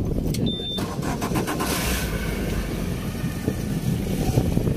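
Boat engine idling, a steady low rumble, with a short high beep about half a second in.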